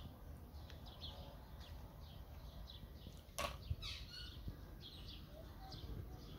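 Small birds chirping in short, repeated calls over a low background rumble, with one sharp click about three and a half seconds in.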